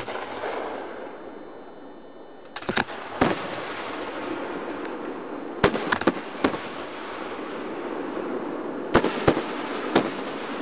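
Aerial firework shells bursting in a display, sharp booms coming in groups: a few about three seconds in, a cluster around six seconds, and three more near the end, over a steady background noise.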